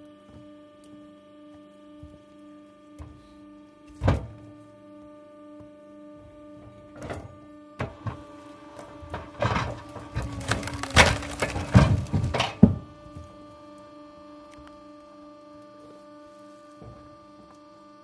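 Tractor-mounted hydraulic log splitter splitting a log over a steady machine hum. There is a single thump about four seconds in. From about eight to thirteen seconds the log cracks and splits apart under the wedge in a run of loud irregular cracks, ending in a sharp snap.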